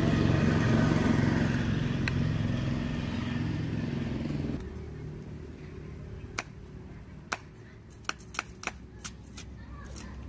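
A motor vehicle engine running steadily, then cutting off sharply about four and a half seconds in. After it, a string of sharp, irregular knocks of a cleaver chopping bamboo shoots on a wooden block.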